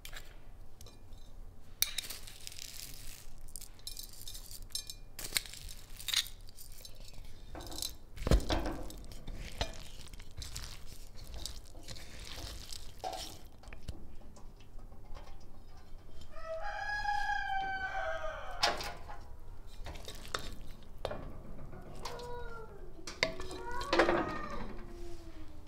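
A wooden spoon stirs and scrapes cooked rice in a ceramic bowl, with knocks and clatter, the loudest about 8 seconds in. About 16 seconds in a rooster crows once for about two seconds. Near the end come several short rising-and-falling calls while the rice is tipped into a metal pot.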